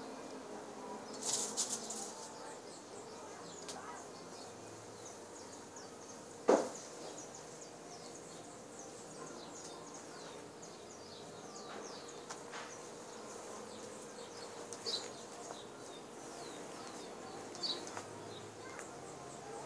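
Scattered short, high chirps of small birds over a faint steady hum, with one sharp click about six and a half seconds in.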